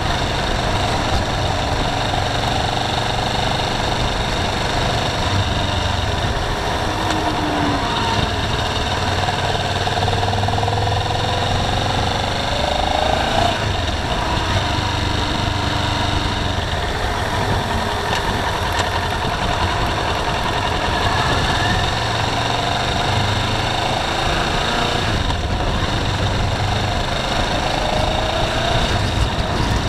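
Car driving on a wet road, heard from inside the cabin: a steady drone of engine and tyre noise, with the engine note rising and falling now and then.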